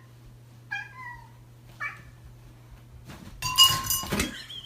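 Domestic cat meowing: two short meows, then a louder, harsher cry about three and a half seconds in.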